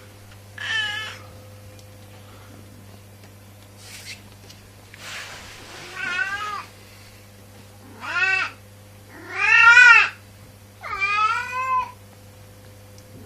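Domestic cat meowing about five times, each call rising and falling in pitch, the fourth the longest and loudest.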